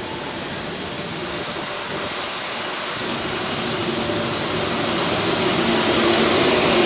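FS E.633 electric locomotive in its original livery running in along the platform, growing steadily louder as it draws alongside, with a hum coming in about four seconds in.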